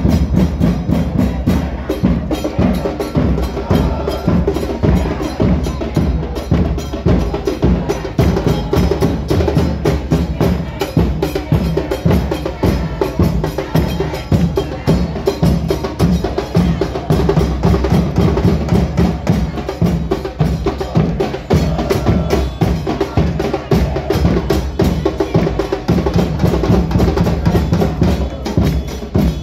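Football supporters' drum band: bass drums (bombos) and snare drums beating a fast, steady rhythm.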